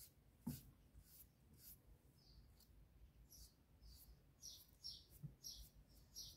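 Near silence with faint, high bird chirps repeating in the background, about one or two a second.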